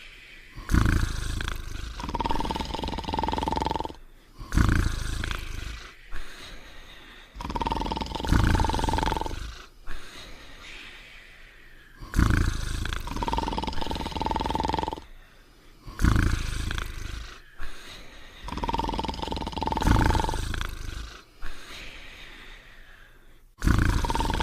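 Cartoon snoring sound effect: a loud rumbling snore that repeats about every four seconds, with a high steady whistle on several of the breaths.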